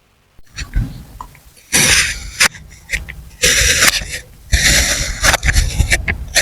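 Kinetic sand being cut with a blade: several grainy, hissing slicing strokes, each about a second long, after a brief silence at the start.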